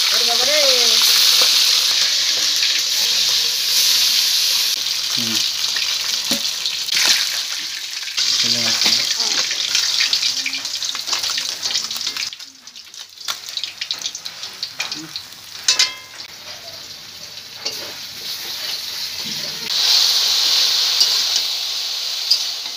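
Bele fish sizzling as it fries in hot oil in an aluminium wok, with scrapes and clicks from a spatula turning the pieces. After a brief break about halfway through, sliced potato and brinjal fry in the same wok, and the sizzle comes back louder near the end.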